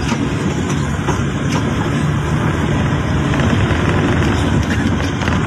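Steady engine and road noise heard from inside the cabin of a moving car.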